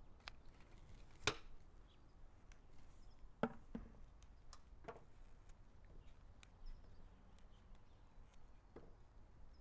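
Pruning snips cutting through succulent stems: a few sharp snaps, the loudest about a second in and more around three to five seconds in, with softer clicks between as the plant is taken apart.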